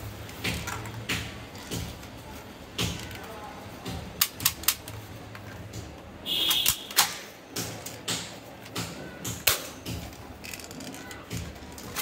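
Toy AK-47 gel-ball blaster making a string of sharp, irregularly spaced clicks and snaps, with a brief high buzz about six seconds in.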